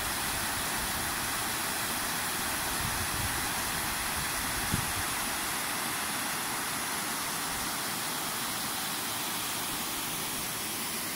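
Small waterfall cascading down mossy rock steps: a steady rush of falling water.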